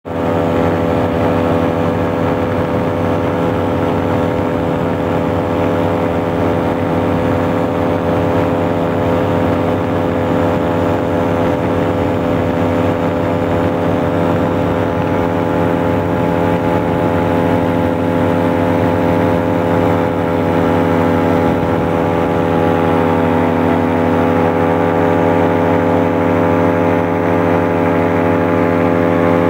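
Paratrike engine and propeller running steadily in cruise flight, an unbroken, loud drone.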